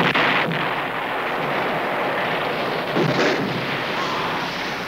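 Battle soundtrack of cannon and musket fire: a sudden cannon blast at the start, then a continuous din of gunfire and explosions, with another blast about three seconds in.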